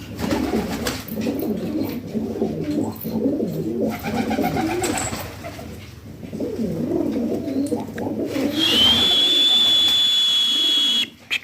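Domestic pigeons cooing in low, wavering, overlapping coos. Near the end a steady high-pitched tone comes in, louder than the coos, holds for about two and a half seconds and stops suddenly.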